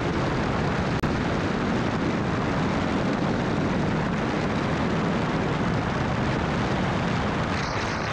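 Steady road and wind noise from a vehicle driving at highway speed, heavy with low rumble. It cuts in abruptly and has a momentary break about a second in.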